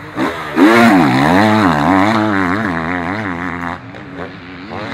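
Enduro motorcycle engine revving hard as the bike climbs past close by, its revs rising and falling about twice a second. It is loudest about a second in and drops away after nearly four seconds.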